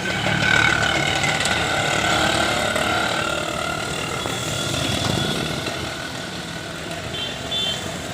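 Yamaha RX100's single-cylinder two-stroke engine running, its pitch easing down slightly over the first few seconds and then holding steady.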